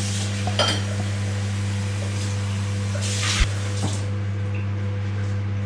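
Dishes and cutlery clinking a few times over a steady low hum.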